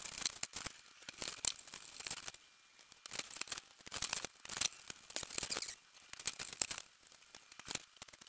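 Plastic wrapping crinkling and rustling in uneven bursts as HO scale model passenger cars are slid out of their plastic sleeves, with small clicks as the cars are handled.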